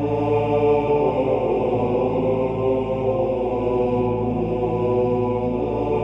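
Background music in Gregorian chant style, with choir voices holding long, sustained notes.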